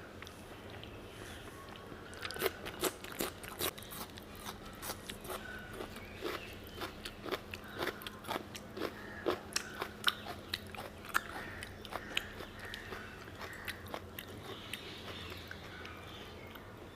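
Close-miked chewing and crunching of a meal of mutton curry, rice and salad: irregular wet mouth clicks and crunches, several a second, starting about two seconds in.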